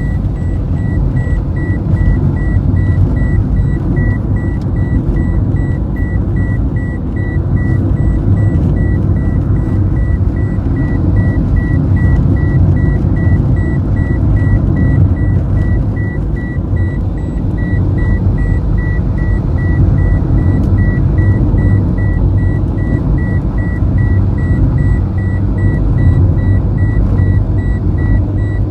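Steady low rumble of a moving car, engine and road noise heard from inside, with a high electronic beep repeating about three times a second without a break.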